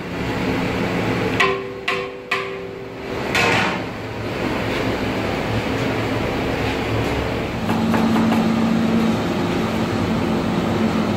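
Three sharp metallic knocks about a second and a half in, ringing on briefly after them, over steady background noise with a low hum.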